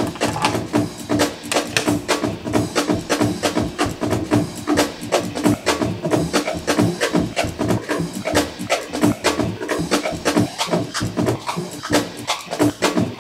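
Looped drum breakbeat played back from a Make Noise Morphogene and run through a QPAS filter and Mimeophone delay: a steady, dense run of fast drum hits with a recurring pitched tone underneath.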